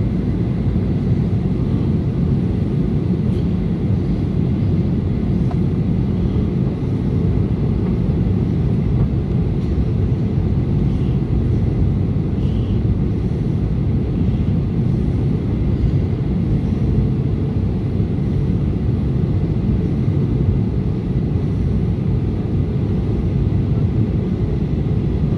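Steady low rumble of jet airliner cabin noise during the approach, engines and airflow heard from a passenger's seat.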